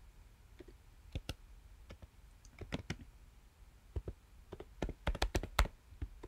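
Typing on a computer keyboard: scattered single keystrokes, then a quicker run of keys toward the end.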